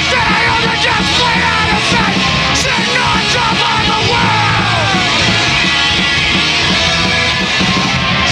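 Rock band playing live, heard close to the drum kit: pounding drums and cymbals under distorted electric guitars and bass, with shouted vocals. About four seconds in, a pitched line slides downward.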